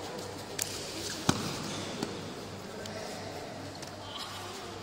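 A few short, sharp slaps and knocks, the loudest about a second in, over a low steady hum and the faint murmur of a large hall.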